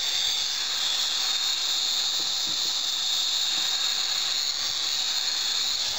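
High-powered electric heat gun running, a steady hiss of its fan and blowing hot air, used to soften the molded plastic seat.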